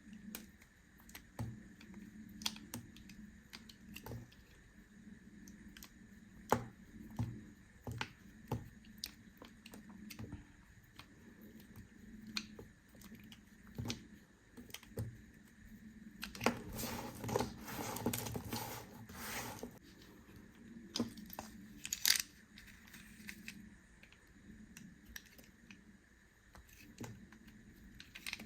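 A blade cutting into bars of soap, giving a string of short crisp clicks and crunches. About two-thirds of the way in comes a denser crumbling, scraping stretch of about three seconds, and soon after it a single sharp crack.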